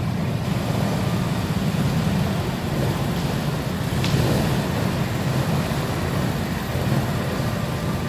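Several go-kart engines idling together in the pit lane of an indoor track, a steady low rumble, with one short click about four seconds in.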